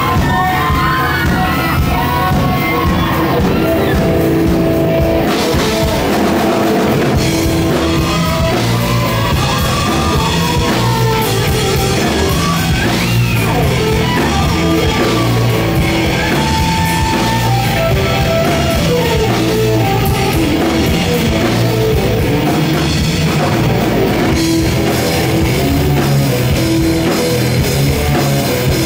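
Live rock band playing: electric guitars through Marshall amplifiers, bass and drum kit. The sound gets fuller and brighter, with cymbals, about five seconds in.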